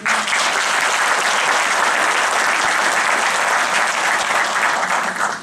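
Audience applauding: dense clapping from many people that starts suddenly and dies away near the end.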